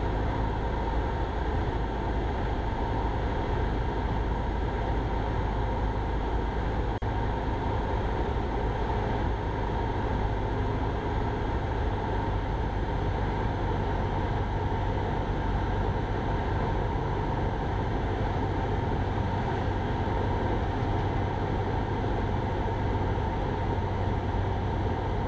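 Cessna 172 Skyhawk's piston engine and propeller droning steadily, heard inside the cockpit in flight.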